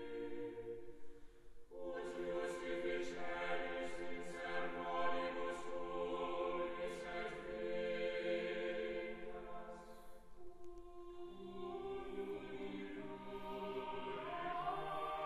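Choir singing a slow devotional song in long held chords, with brief pauses between phrases about 2 and 10 seconds in.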